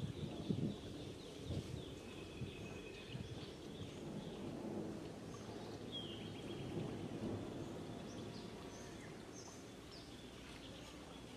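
Outdoor ambience: a low, uneven rumble with scattered bird chirps, a few high trills near the start and a short falling chirp about six seconds in.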